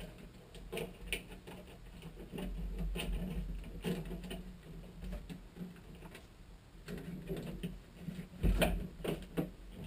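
Handling noise of a Fantastic Fan roof vent being worked into its roof opening by hand: scattered small clicks, rustles and light knocks of the plastic housing and wires, with a louder knock near the end.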